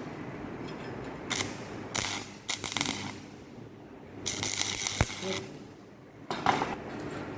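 Stick (arc) welding with a 3 mm electrode, crackling in several short bursts as tack welds are struck on a steel T joint, with a sharp click partway through.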